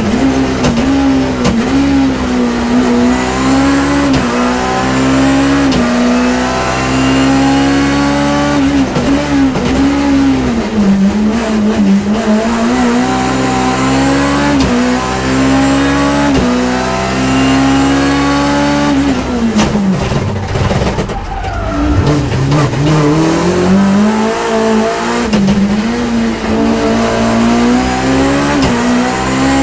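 BMW E30 M3's four-cylinder engine, heard from inside the rally car's cabin, running near its rev limit at full throttle. The pitch climbs and drops back repeatedly with the gear changes, and around twenty seconds in the revs fall away sharply as the car slows for a corner, then climb hard again.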